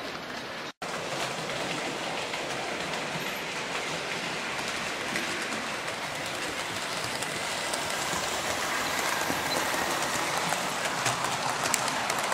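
00 gauge model train running round the layout, its wheels rattling and clicking over the rail joints with a steady whirr, growing louder as it nears. The sound cuts out for an instant about a second in.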